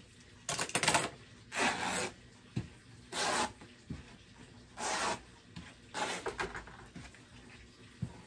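Cotton fabric and thick quilt batting rustling and sliding over a cutting mat as a pinned quilt is handled, in about five rough swishes with a few faint knocks between them.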